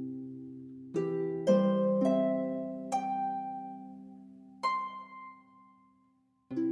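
Slow background music of single ringing notes that start sharply and fade. It dies away almost to silence shortly before the end, and a new chord sounds right at the end.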